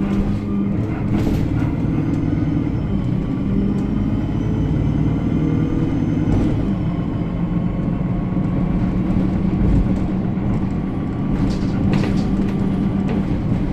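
Alexander Dennis Enviro 300 single-deck bus engine running steadily under way, with a faint high squeal that rises and falls about halfway through, a thin whine later on, and a few short rattles.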